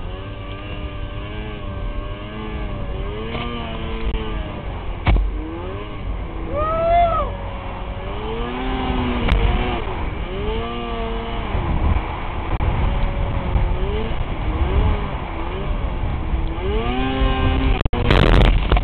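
Snowmobile engine revving up and down in deep powder, its pitch rising and falling over and over with the throttle. Near the end a loud burst of noise as the machine plunges into snow that covers the camera.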